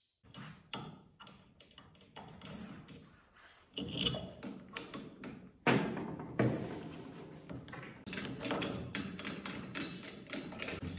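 Irregular metal clicks, taps and knocks as the accessory in an electric drill's keyed chuck is changed: the cutting disc is taken off and a grinding wheel on a mandrel is fitted. The drill is not running. A few louder knocks come around the middle.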